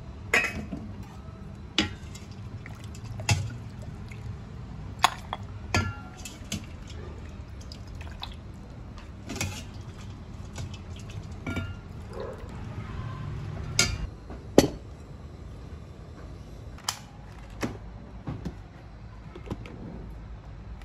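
Metal ladle and lid clinking irregularly against a metal soup pot and bowl, with soup pouring and dripping as it is ladled out; the sharpest clink comes about two-thirds of the way through.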